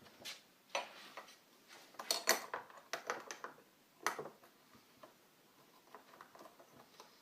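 Irregular metal clicks and clinks of a flat steel card-shaped multi-tool's 1/2-inch wrench slot working a skateboard axle nut, with the busiest run of clinks about two seconds in.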